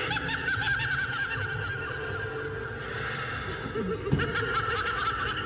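Animated Halloween doll prop giggling: a high, quick, repeated laugh in two spells, one at the start and one near the end, with a single knock about four seconds in.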